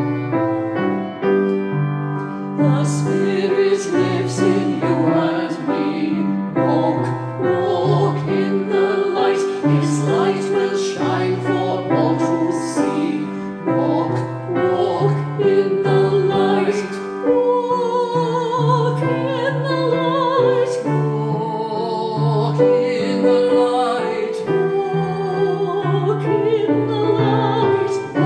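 Music: keyboard accompaniment with a singing voice entering a couple of seconds in, sung with strong vibrato in a classical style.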